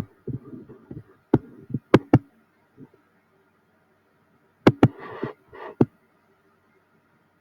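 Computer mouse clicks and keyboard taps: sharp clicks in two clusters, one in the first couple of seconds and another around five seconds in, with short scraping noises between them.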